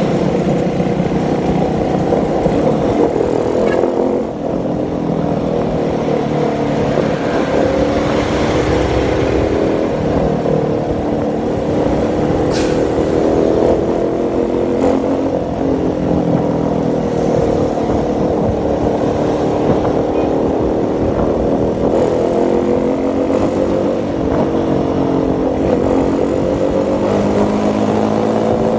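Motorcycle engine running while riding, its pitch rising and falling repeatedly as it speeds up and slows down.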